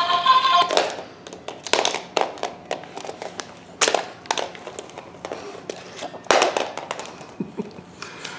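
An electronic toy's synthesized song cuts off under a second in, followed by a run of irregular clicks and knocks, like plastic toys being knocked about and handled.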